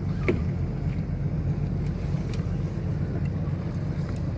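Boat motor running steadily with a low drone, some wind noise on the microphone over it.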